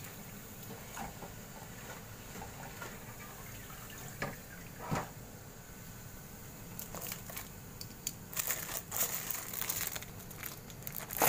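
Prawn crackers deep-frying in hot oil: a faint sizzle, with crackling that grows busy over the last few seconds as the crackers puff up. One sharp knock near the end.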